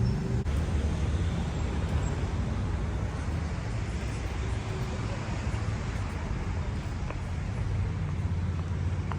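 Steady road traffic noise of cars passing on a city street.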